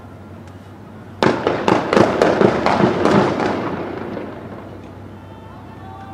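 A rapid volley of about ten sharp bangs over some two seconds, starting a second in, with an echoing tail that dies away.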